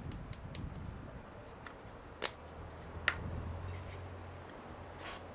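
Sharpening stone rubbed in a figure-8 over 220-grit lapping compound on a flat ground-steel bench top, a steady gritty scraping that opens up the stone's clogged, glazed surface. A few sharp clicks break in, about two seconds in, three seconds in and near the end.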